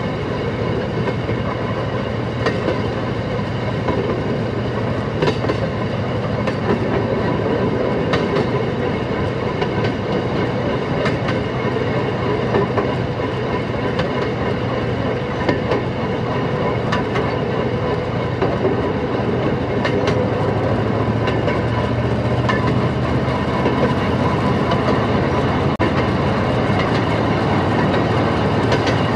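Railroad speeder (track motorcar) running along the rails: a steady engine and drivetrain drone with wheels clicking over rail joints every second or two.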